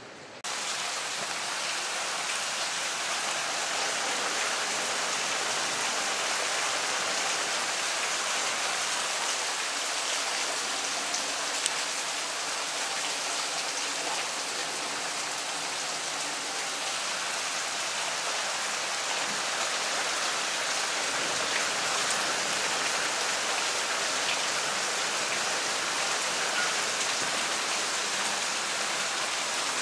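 Heavy rain pouring steadily, a dense hiss of drops striking the yard and nearby surfaces. It comes in abruptly louder about half a second in and then holds even.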